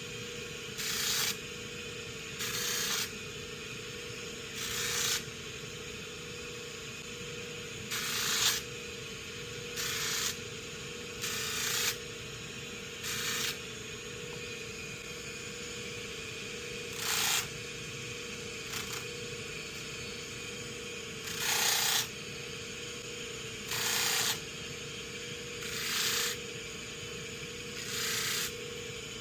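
Sandpaper rubbed by hand over the steel hammer of a 1911 pistol, about a dozen short strokes spaced irregularly, smoothing the bobbed and rounded hammer. A steady low hum runs underneath.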